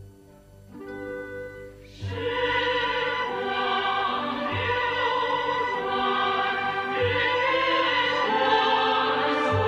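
Orchestral song with sung vocals: a soft instrumental lead-in, then the full band and voices come in about two seconds in, with a low beat roughly every two and a half seconds.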